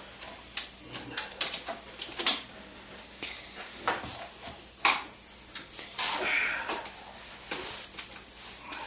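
Metal tools and parts clinking and tapping while a motorcycle's front brake caliper and wheel are handled, with irregular sharp clicks, one louder clank about five seconds in, and a rougher scraping sound lasting about a second shortly after.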